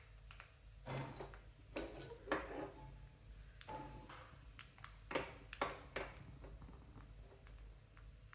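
Mustard seeds and urad dal frying in sesame oil in a small pan: faint sizzling with a scattering of short crackles and pops.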